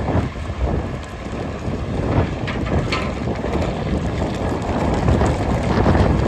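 Bobcat E85 compact excavator running, its engine a steady low rumble, with a couple of short knocks about two and three seconds in.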